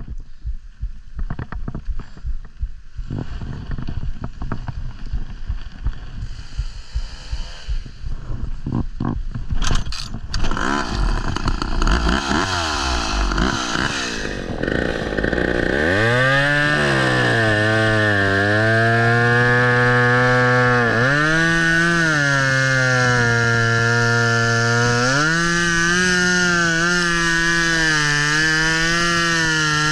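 Irregular knocks and clatter, then about halfway through a two-stroke chainsaw starts up and runs on, its engine pitch dipping and rising as it is throttled and loaded in the cut.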